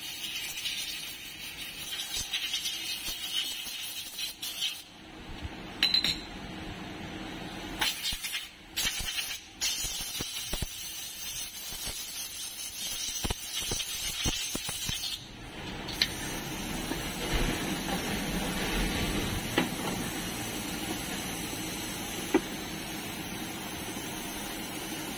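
Irregular metallic clinks and scraping as the variator parts of a TVS Jupiter 125 scooter's CVT clutch are handled and worked with a hand tool, over a steady background hiss that grows fuller in the last third.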